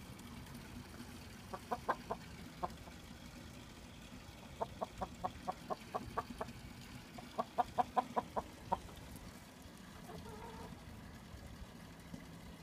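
Chickens clucking in three runs of quick, short clucks, followed by one longer drawn-out call about ten seconds in.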